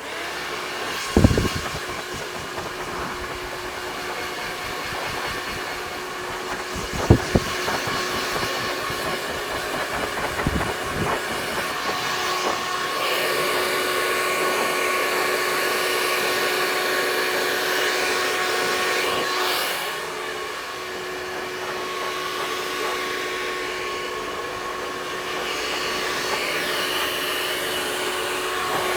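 Handheld hair dryer switched on and running steadily: rushing air with a motor hum. A few sharp knocks come in the first ten seconds or so.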